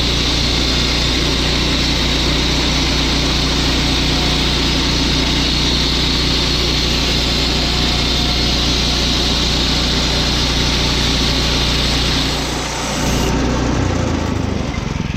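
Woodland Mills HM122 portable bandsaw mill running, its engine held at steady high speed while the band blade cuts through Douglas fir with a steady hiss. About 13 seconds in, the cutting hiss stops and the engine drops to a lower speed.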